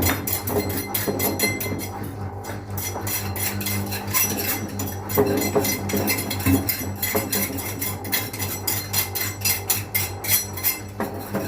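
A Whirlpool FL 5065 washing machine on a 400 rpm spin with a Kipsta ball in the drum. A steady low motor hum runs under a rapid, uneven run of knocks and clatters as the ball is thrown around the drum.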